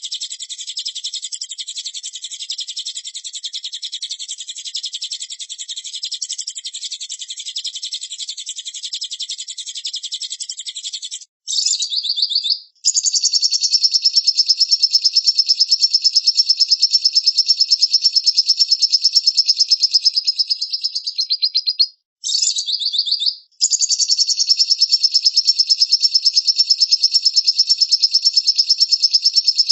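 Recorded songbird tutor song (masteran) for a white-rumped shama to learn from: a very fast, unbroken high trill of rapidly repeated notes. After about eleven seconds and a short break it changes to a louder, higher trill, with one more brief break about two-thirds of the way through.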